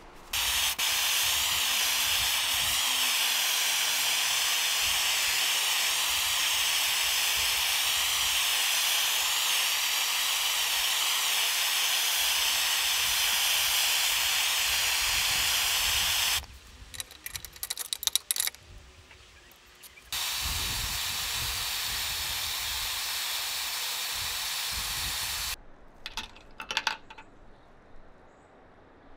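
Handheld gas torch burning with a steady hissing flame, heating a steel wrench for hot bluing. It cuts out about sixteen seconds in amid a few light metal clinks, hisses again for about five seconds, and stops with a few more clinks.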